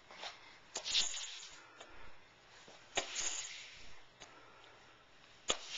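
A few scattered sharp taps with brief rustles, from a toddler's hands and knees moving on a hardwood floor.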